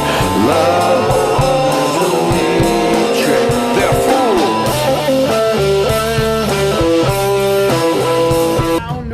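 Instrumental music led by guitar, with sliding, bent notes over a bass line. It breaks off shortly before the end.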